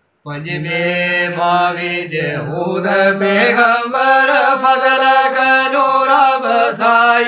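Unaccompanied men's voices singing a Gojri bait, holding long, drawn-out notes that shift slowly in pitch, with no instruments. The singing starts about a quarter second in.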